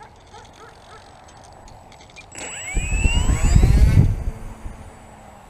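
Electric motor and propeller of a Conscendo S RC glider spinning up: a whine rising sharply in pitch about two and a half seconds in, then falling away over the next two seconds, with a loud low rumble alongside.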